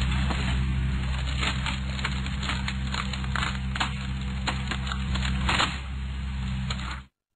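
Excavator's diesel engine running steadily while its hydraulic screw cone splitter bores into logs, with repeated sharp cracks and creaks of the wood splitting apart. The sound cuts off abruptly near the end.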